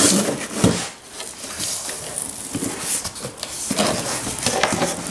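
Packing tape ripped off a cardboard box with two sharp tears near the start, then the cardboard flaps are pulled open, scraping and rustling.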